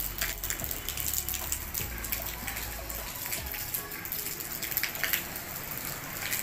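Rain falling, with many irregular drops tapping and dripping close by; a low rumble underlies the first three seconds.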